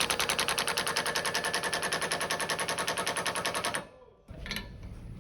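Homemade impact wrench adapter on a cordless drill hammering a nut tight at low speed: a rapid, even rattle of impacts, about ten a second, from its spring-loaded hammer mechanism striking the anvil. It stops about four seconds in, followed by a couple of single clicks.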